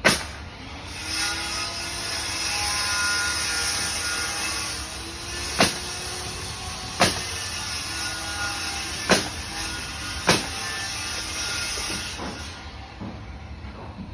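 Construction noise from a neighbouring property: a heavy machine or vehicle running, stopping about two seconds before the end, with five sharp, loud bangs at uneven intervals.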